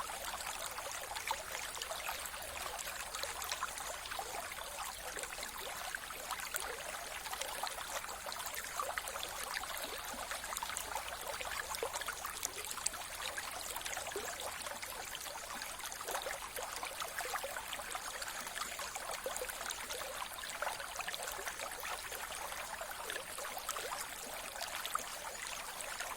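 Mountain river flowing steadily, water rushing and splashing over stones.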